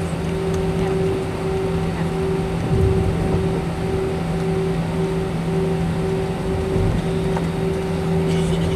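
Cabin noise of an Airbus A321 taxiing, heard through the fuselage: a steady jet-engine hum with a higher tone that pulses regularly, over a low rumble that swells briefly about three seconds in and again near seven seconds.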